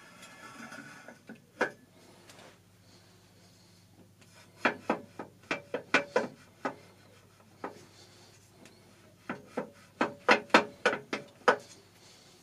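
Welded steel frame knocking against a milling machine's metal body as it is held and shifted into place: short sharp metal knocks, one a couple of seconds in, then two quick clusters of several knocks each, one in the middle and one near the end.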